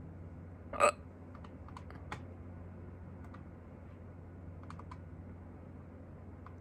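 A single sharp hiccup about a second in, short and loud, followed by a few faint clicks.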